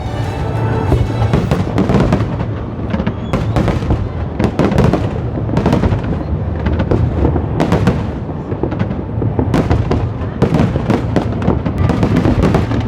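New Year fireworks bursting in quick succession, many sharp bangs and crackles close together, over music with a steady bass.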